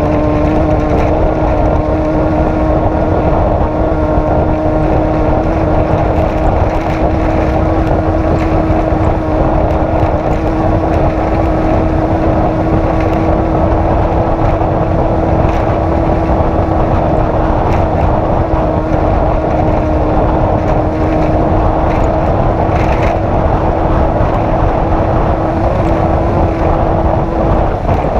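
Off-road race vehicle's engine running at a steady speed under heavy wind and running noise, with one droning pitch held level throughout.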